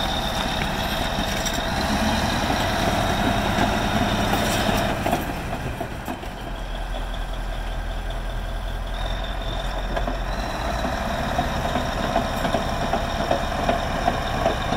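Caterpillar D9N crawler dozer's Cat 3408 V8 diesel engine running steadily, with a thin high whine that fades in and out over the engine note.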